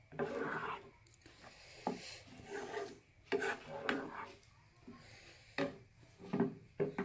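A spatula stirring a thick curd curry in a non-stick pan, in a series of uneven scraping strokes about a second apart. The curry is thickening as it heats.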